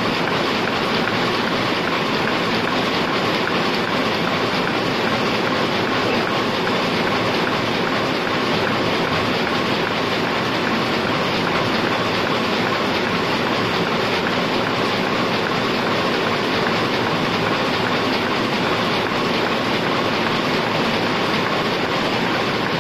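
Heidelberg SORMZ two-colour offset printing press running, a steady, dense mechanical clatter.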